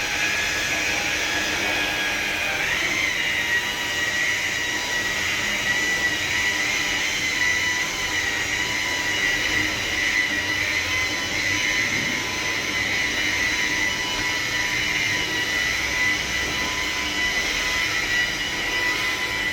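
A handheld power sanding/polishing tool running steadily on a car's painted surface, with a constant high whine over its motor and pad noise.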